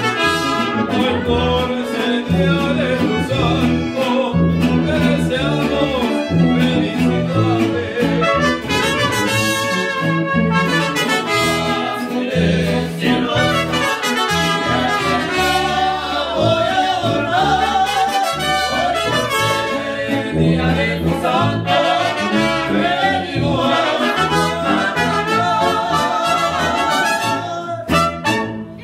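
Brass band music, with trumpets and trombones playing over a low bass line that keeps a steady beat.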